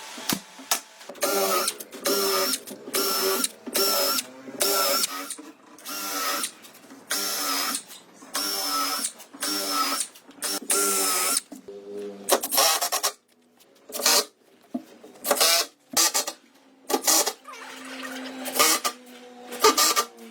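A small power tool running in short, regular bursts, about one and a half a second, each with a steady motor pitch. After about twelve seconds the bursts become irregular, with sharp clicks between them.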